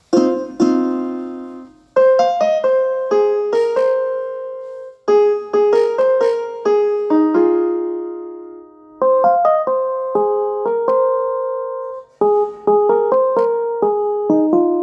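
Piano ringtone melody: short phrases of a few quick struck notes that ring on and fade, repeating with brief pauses between them.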